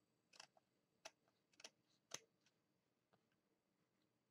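Small scissors snipping washi tape: four short, faint clicks in the first two seconds or so.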